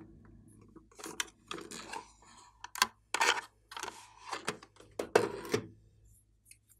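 Hard plastic clicking and clattering as a plastic toy case is handled and opened and a plastic pen-shaped item is taken out of it. There are a few sharp clacks, the loudest about three and five seconds in.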